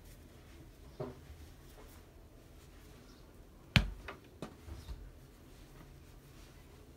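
Hands handling a pack of socks on a plastic hook hanger on a wooden tabletop: soft fabric rustling and light knocks. One sharp click comes a little under four seconds in, followed by a few smaller clicks.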